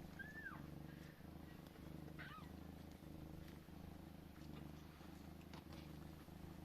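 Cat purring, a low steady buzz that swells and eases with each breath, with two brief high squeaks, one near the start and one about two seconds in.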